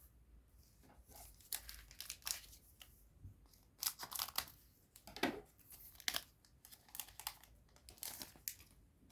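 Foil booster-pack wrapper of a trading card pack being torn open and crinkled, in short irregular crackles.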